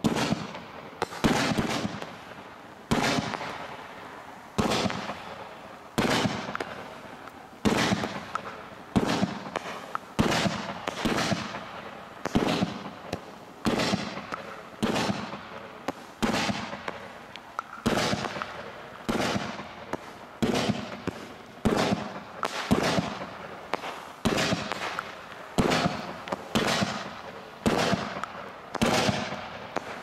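F3 firework cake (Startrade Pyrofessional Alfa One Zero) firing its 49 mm shells in a steady sequence, about one shot a second. Each shot is a sharp bang followed by a fading tail.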